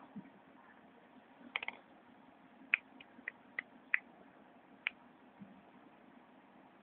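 A scattering of light, sharp clicks, about eight in all: a quick cluster of three about a second and a half in, then single ticks spread over the next few seconds, over a faint low hum.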